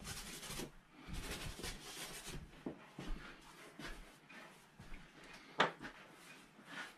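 Oil paint being scrubbed onto a stretched canvas in short, dry rubbing strokes, dense for the first two seconds or so and then more scattered, with a few small knocks and one sharp click about five and a half seconds in.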